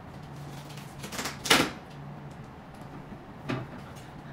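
A few short clicks and knocks of a small steel holding part being handled and fitted against the side of the roller machine's housing. The loudest knock comes about one and a half seconds in, just after a couple of lighter clicks, and another knock follows near the end.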